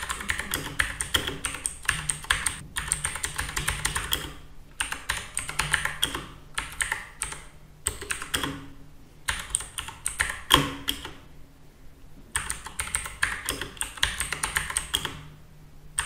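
Typing on a Redragon Kumara K552 mechanical keyboard: rapid runs of keystrokes with short pauses between runs.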